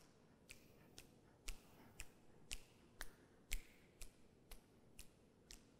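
Sharp finger snaps keeping a steady beat, about two a second, louder around the middle.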